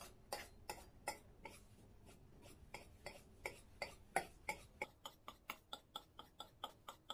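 Kitchen knife blade cutting away overhanging phyllo dough around the rim of a round metal baklava tray, clicking against the tray's metal edge. The clicks come irregularly at first, then quicken to an even run of about four a second from about five seconds in.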